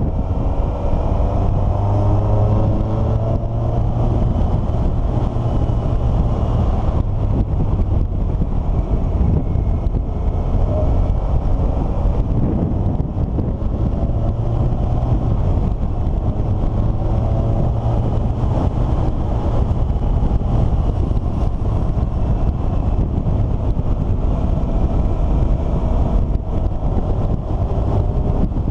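A motor vehicle's engine running on the move, its pitch rising several times as it speeds up, over a steady low rumble.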